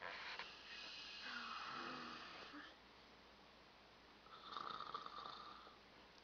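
A person snoring: two long snores, the second starting about four seconds in.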